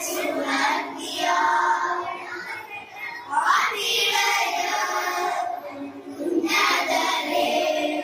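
Children's choir singing a Christmas carol into stage microphones, in phrases broken by short pauses.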